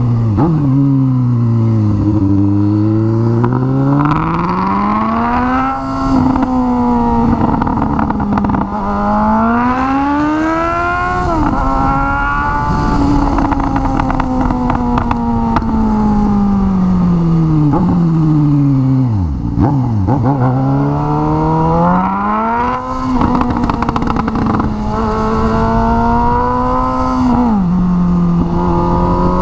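Suzuki GSX-S750 inline-four engine running through a straight pipe with no muffler, revving up and rolling off again and again while riding, with the pitch dropping sharply at each gear change. There are occasional sharp pops when the throttle closes.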